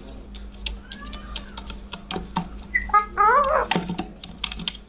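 Pet rose-ringed parakeet calling: a faint curved call about a second in, then a short burst of warbling, pitch-bending notes about three seconds in. Scattered sharp clicks sound throughout.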